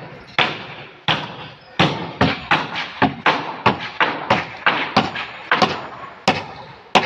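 A run of sharp knocks, each ringing out briefly, coming irregularly and quickening to about three a second in the middle.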